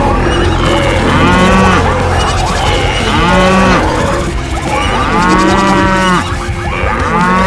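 Cows mooing, four moos about two seconds apart, each rising and falling in pitch, over a continuous low rumble.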